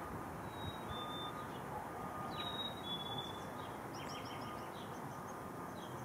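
Black-capped chickadee singing its whistled two-note "fee-bee" song twice, a clear high note dropping to a slightly lower one, then a quick run of short high notes. A low steady rumble runs underneath.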